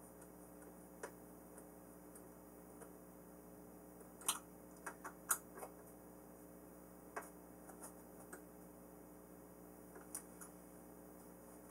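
Sparse, irregular small clicks and ticks of a hex driver and screws being tightened into a foam RC airplane's airframe, over a faint steady hum. The loudest clicks come in a quick cluster about four to six seconds in.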